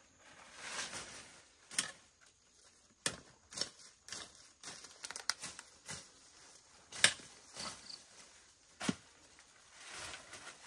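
Leaves and stems rustling and snapping as plants are picked by hand, with a few sharp snaps scattered through, the loudest about two-thirds of the way in.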